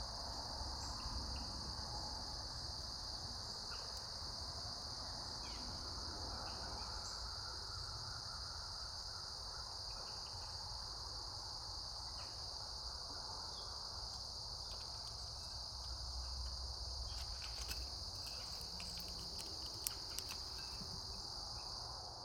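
Steady outdoor insect chorus, one unbroken high-pitched drone, with a few faint short chirps now and then and some sharp clicks near the end.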